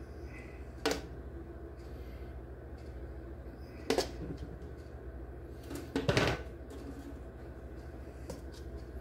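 Metal tongs knocking against a stainless steel mixing bowl while picking up sauce-coated chicken wings: a clink about a second in, another about four seconds in, and a longer, louder clatter a couple of seconds later. A steady low hum runs underneath.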